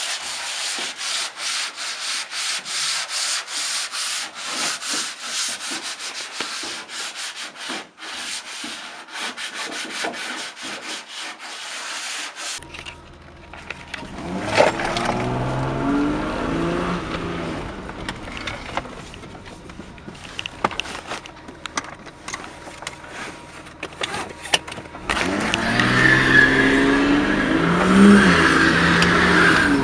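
Abrasive sanding of the painted body panel of a Nissan R31 Skyline: quick, steady back-and-forth rasping strokes. After about twelve seconds this gives way to the Skyline's engine running from inside the cabin as the car drives, getting louder and rising in pitch about 25 seconds in as it accelerates.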